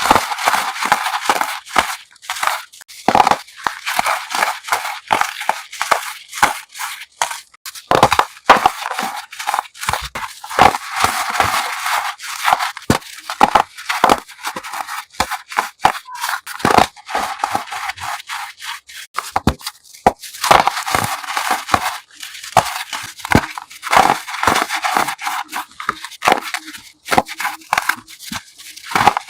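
Crunchy chalk block being crushed: quick dry crunching and crackling that comes in close runs with short pauses, crisp and high with little low end.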